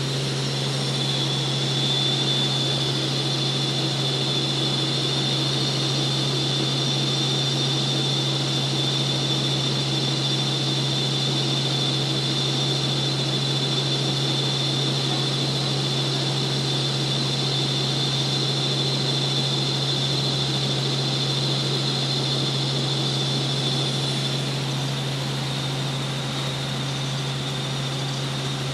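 Light helicopter in flight, heard from inside the cabin: a steady drone of engine and rotor with a constant low hum and a thin high whine over a rush of air noise.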